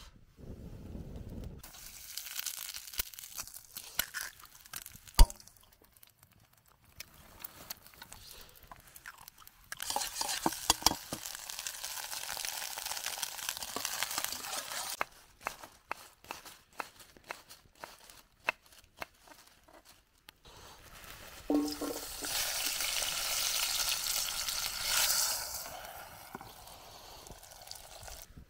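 Food frying in a small camping pan over a wood fire: several stretches of sizzling that start and stop abruptly, with sharp clicks and scrapes from stirring and one loud knock about five seconds in.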